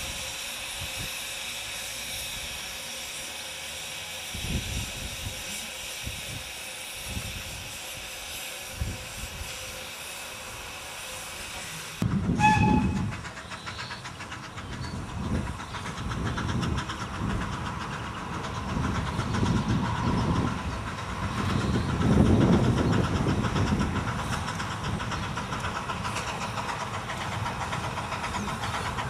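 Small narrow-gauge steam locomotive running with a steady hiss of steam and faint low knocks. After an abrupt cut about 12 seconds in, it is louder, with uneven swelling low beats as a steam locomotive hauls a train of coaches past.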